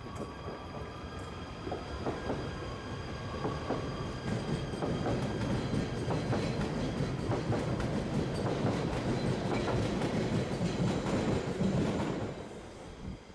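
A two-car Stadler Flirt electric multiple unit running past on the track, with a rumble and many wheel clicks over the rail joints. It grows louder over the first half, stays loud, then fades away shortly before the end.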